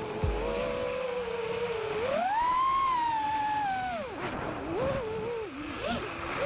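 FPV quadcopter's motors whining with the throttle. The pitch climbs about two seconds in, holds high, drops sharply near four seconds, then wavers lower.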